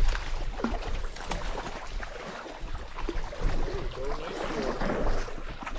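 River water splashing and sloshing as a hooked trout is brought in and an angler wades through the shallows, with scattered knocks and rustles of jacket and gear against the body-worn camera.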